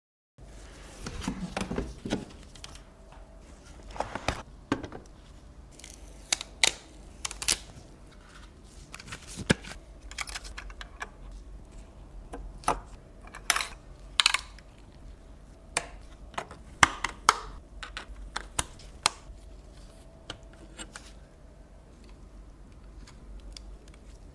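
Irregular clicks and taps of hard computer parts being handled and fitted, some sharp and loud, over a faint steady hum.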